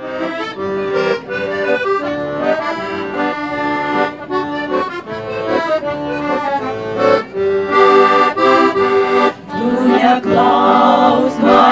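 Accordion playing a tune, a melody over held chords.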